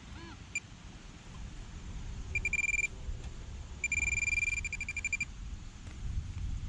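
Handheld metal-detecting pinpointer sounding a steady high beep twice, a short one about two and a half seconds in and a longer one about a second later, as it is pushed into the dug hole and picks up the buried metal target. Soft scraping and crumbling of soil under gloved hands runs underneath.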